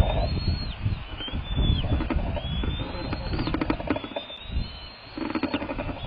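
Bald eaglet begging calls: repeated high, thin drawn-out calls, each rising and then falling, over strong wind rumbling on the microphone.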